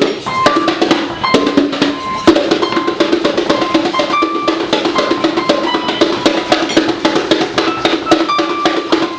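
Children banging rapidly and unevenly on bongos, with piano notes sounding over the drumming.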